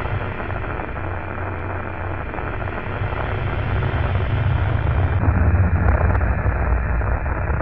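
Loud, steady static-like noise over a deep hum, with no rhythm or clear tones; it turns slightly duller about five seconds in.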